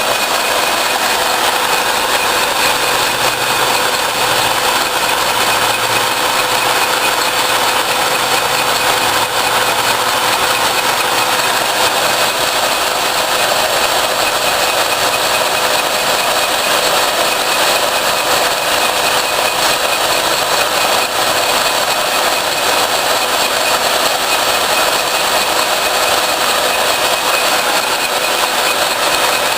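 Portable line-boring bar driven by a 3/4-inch drill, running steadily as its cutter bores out an excavator pin hole, with a steady whine over the grinding noise of the cut.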